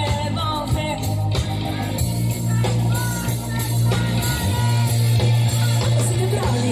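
Live pop-rock band playing, with electric guitar, bass, drums and keyboards under a woman singing.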